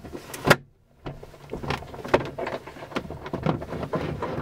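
A single sharp clunk about half a second in, then a brief hush and a run of irregular rattling and knocking from a glider's cockpit and airframe as it stands ready for launch.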